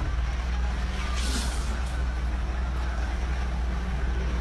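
Commotion of people hurrying through a shopping mall during an earthquake: a steady low rumble under a general noisy din, with a brief hiss about a second in.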